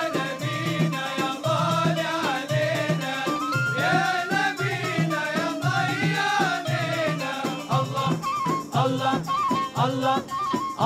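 Male Sufi inshad choir singing a devotional praise song over a steady frame-drum beat, with a wooden rattle and a ney flute holding long notes; near the end the melody instrument repeats a short figure.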